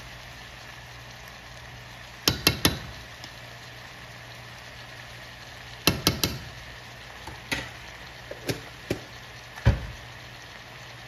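A metal spoon taps and knocks while red seasoning powder is sprinkled over food in a frying pan. The knocks come in two quick groups of three, about two and six seconds in, then as single knocks, over a steady faint sizzle from the pan.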